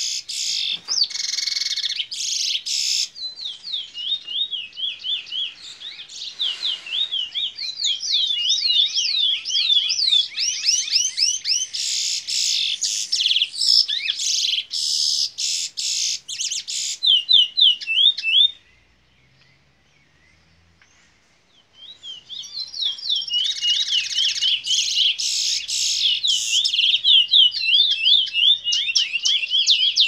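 A red siskin x canary hybrid (fire red mule) singing in a bullfinch style: fast runs of repeated high sweeping notes and rapid trills, with a pause of a few seconds past the middle before the song starts again.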